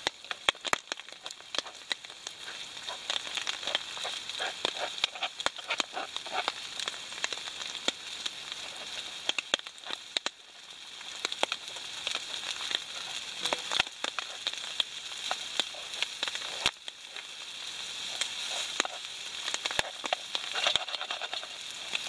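Banana pancake frying in a steep-sided pan over a flame: a steady sizzle with many scattered crackles and clicks.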